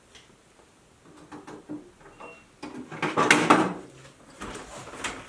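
Pliers and hand tools handled on a workbench: scattered clicks and knocks, with the loudest clatter about three seconds in.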